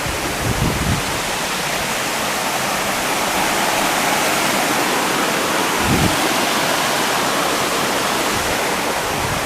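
A small waterfall rushing steadily behind the cabin, with a couple of dull low thumps about half a second in and again about six seconds in.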